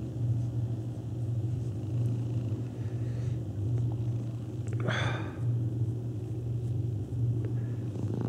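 Domestic cat purring in a steady low rumble that swells and dips with its breathing. A short breathy noise comes about five seconds in.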